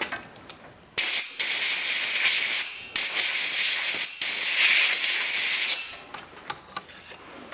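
Compressed air hissing from a blow gun in four bursts, the first brief and the others a second or more each, blowing loose carbon out of a diesel EGR valve.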